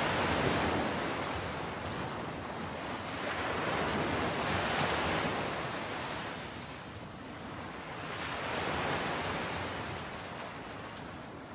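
Sea waves washing in, the surf swelling and falling away about three times before fading out.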